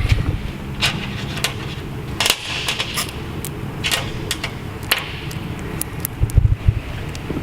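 Irregular sharp clicks and light metallic taps of small parts and tools being handled, over a steady low rumble.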